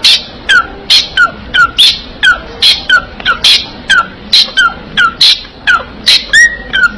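A parrot giving short, sharp, loud calls over and over, about three a second, each one dropping in pitch.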